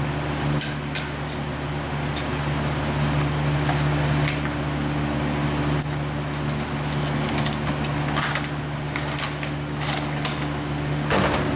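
Plastic packaging crinkling in short bursts as a new A/C compressor is unwrapped and lifted out of its bag and cardboard, over a steady machine hum.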